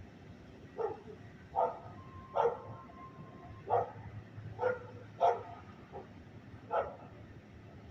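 A dog barking: about seven short barks at uneven intervals.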